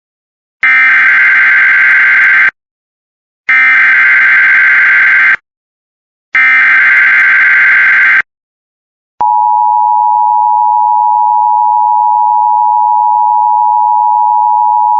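Emergency Alert System header: three identical bursts of digital data tones, each about two seconds long and a second apart, encoding a severe thunderstorm watch (SVA). After a short gap, about nine seconds in, the steady EAS attention tone begins and holds.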